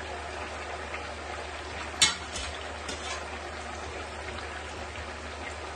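Chicken pieces frying in hot oil in a pan, a steady sizzle. A metal slotted spoon gives a sharp clink about two seconds in, with a couple of lighter knocks after.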